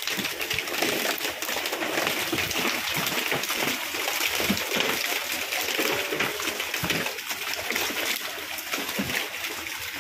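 Live tilapia flapping and splashing in wet plastic fish crates, with many irregular wet slaps and knocks over a steady hiss of running water.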